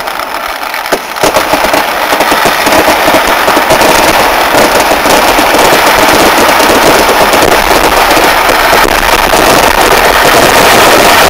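A massed Kerala temple fireworks barrage (vedikettu): countless explosions overlapping so fast they merge into one continuous din of bangs and crackle. It swells about a second in and stays very loud.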